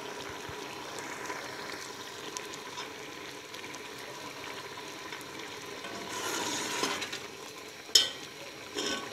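A pot of chana dal and chicken cooking down on high heat in an open aluminium pressure cooker, a steady hiss as its water boils off. One sharp metallic knock about eight seconds in, from the steel ladle against the pot.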